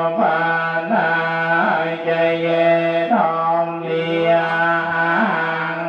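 Traditional funeral music: a steady droning tone with a sliding, ornamented melody played over it in short repeating phrases.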